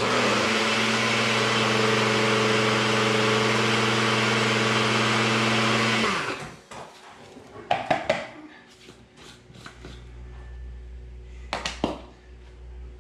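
NutriBullet personal blender's motor running steadily at full speed for about six seconds, grinding baked eggshells into powder, then winding down. A few short knocks follow.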